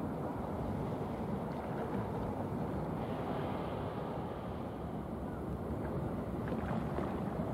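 Steady low rumble of a small general cargo ship passing, its engine and bow wave, under wind buffeting the microphone.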